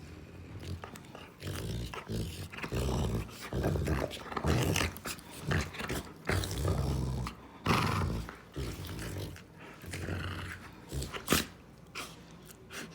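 Rottweiler growling in a string of low, rough growls, the kind it makes while mouthing at its owner's hand in play. A sharp click comes near the end.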